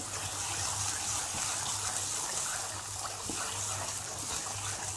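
Thick onion-tomato masala gravy sizzling steadily in hot oil in a pan while it is stirred with a wooden spatula, the paste being reheated.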